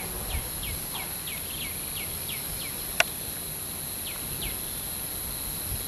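A bird calling in a run of short falling notes, about three a second, with a second short run near the end, over a steady high-pitched insect drone. A single sharp click comes about three seconds in.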